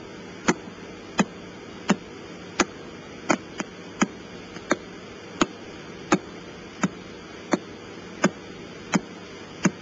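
A radio pulsar's signal from a radio telescope, played as sound: sharp regular clicks about 0.7 s apart, roughly one and a half a second, over steady static hiss. Each click is one turn of the spinning neutron star sweeping its radio beam past Earth.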